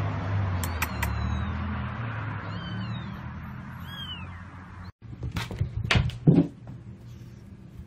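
Young kittens mewing in a few short, high, falling calls over steady background noise. After a cut about five seconds in, a cat's scuffling brings several sharp knocks and a louder low thump.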